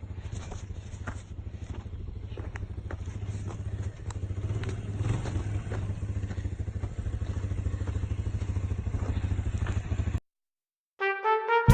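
Four-wheeler (ATV) engine running, a little louder about four seconds in, with scattered clicks and knocks over the rumble. It cuts off abruptly about ten seconds in, and music begins just before the end.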